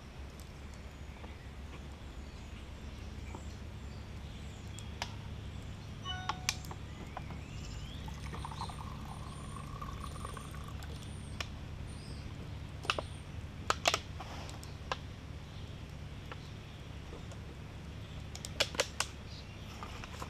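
Scattered clicks and crinkles of a heat-deformed plastic water bottle with a melted-on cap being handled, over a steady low rumble. Faint bird chirps come through around the middle.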